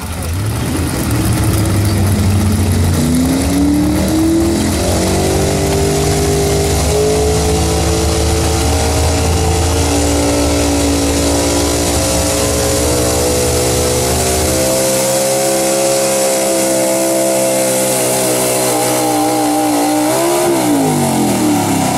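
Pickup truck's engine at full throttle, hauling a weight-transfer sled in a truck pull. The revs climb over the first few seconds, hold high and steady under load, then fall away a couple of seconds before the end.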